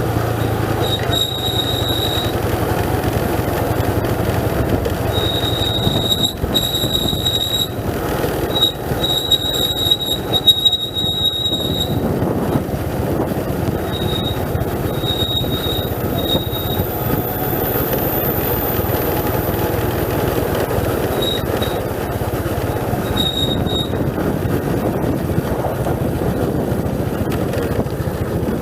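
Vehicle brakes squealing in repeated high-pitched bursts over steady engine and road noise, as the vehicle brakes its way down a steep mountain road. The squeals come and go through the first half and return briefly near the end.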